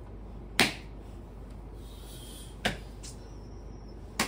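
Three sharp open-hand slaps on a sleeping person's body, roughly two seconds apart, the first the loudest.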